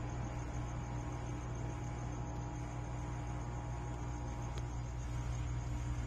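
Steady low electrical-sounding hum with hiss, and a faint, even, high-pitched pulsing tone above it; nothing starts or stops.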